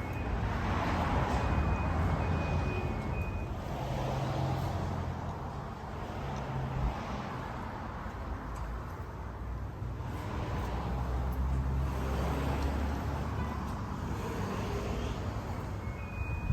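A motor vehicle engine running with road and traffic noise, its low hum swelling and easing. A high, evenly repeating beep starts near the end.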